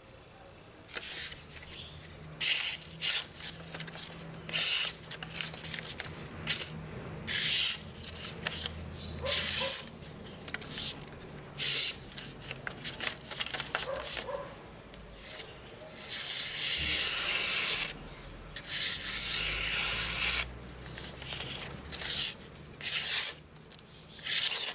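A sharp handmade santoku kitchen knife slicing through a sheet of paper: a series of quick, crisp rasps, one per cut, with two longer drawn-out slicing cuts about two-thirds of the way through. It is a sharpness test of the finished blade.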